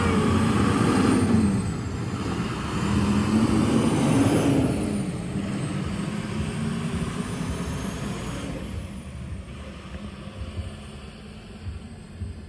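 A motor vehicle's engine pulling away, revving up through a gear and then settling, with a faint high whine, growing steadily fainter as it drives off.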